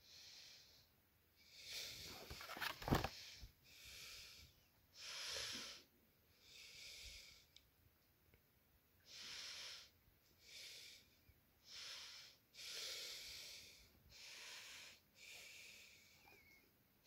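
A person breathing close to the microphone, a soft breath every second or so, with a brief sharp knock about three seconds in.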